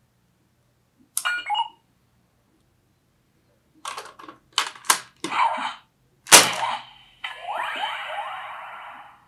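Ben 10 Disc Ultimatrix toy playing its electronic sound effects through its small speaker as an alien disc is loaded: a short beep about a second in, a quick run of blips and clicks around four to five seconds, then a loud burst followed by a long hissing effect with repeated rising sweeps that slowly fades.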